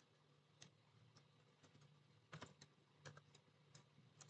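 Faint, irregular keystrokes on a computer keyboard, about a dozen short clicks, as a line of code is typed.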